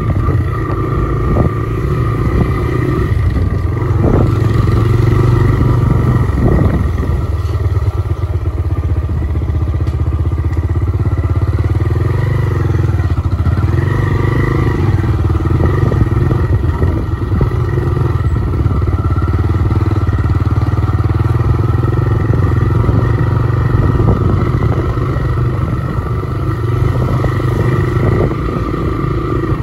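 Motorcycle engine running steadily while riding along a rough dirt road, heard from the bike itself, with a few short knocks and rattles about four and six seconds in.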